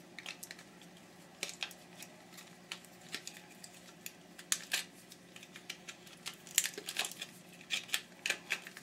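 Scattered light clicks and taps of small plastic and metal parts being handled and picked apart, as a power washer's switch housing is stripped for its wiring and copper.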